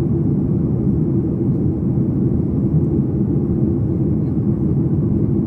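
Steady low rumble of engine and airflow noise inside the cabin of a Boeing 737 MAX 8 during descent.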